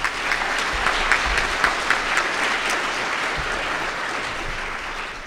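Audience applauding after a talk: dense clapping that eases off slightly near the end.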